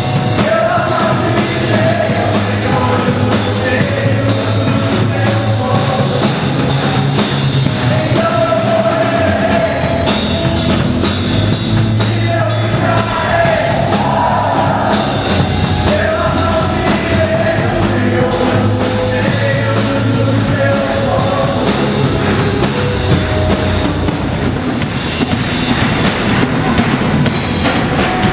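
Upbeat gospel rock song with a drum kit keeping a steady beat and singing over it.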